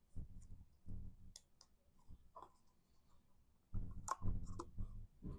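Black cardstock handle of a small paper treat bag being pinched and pressed onto the bag by hand: scattered light clicks and soft taps of paper handling. The clicks come thicker and louder about four seconds in.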